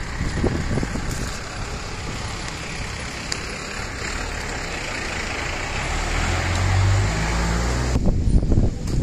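Street traffic noise with motor vehicles passing. A vehicle engine runs close by with a loud low hum about six seconds in, which stops abruptly near the end.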